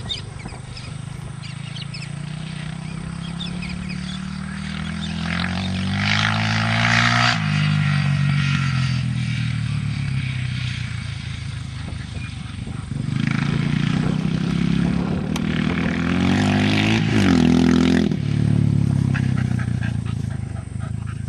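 Honda XR600 single-cylinder four-stroke trail bike engine accelerating across open ground, its pitch climbing steadily under throttle to a peak about seven seconds in, then dropping sharply as the throttle is eased. It builds again and drops off once more about three seconds before the end, growing louder as the bike comes closer.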